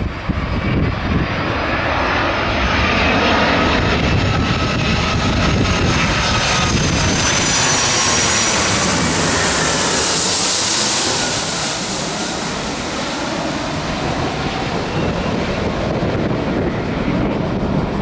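Landing aircraft's engines passing low overhead on approach. A whining engine noise builds to a loud high hiss about halfway through, then drops in pitch and eases off as the aircraft moves away.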